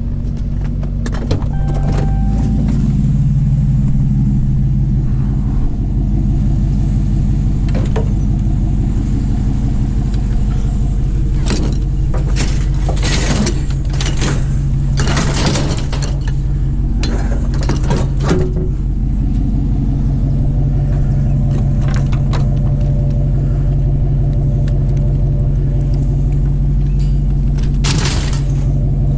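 A vehicle engine running steadily at idle, with bursts of clattering and knocking from about twelve to eighteen seconds in and again near the end.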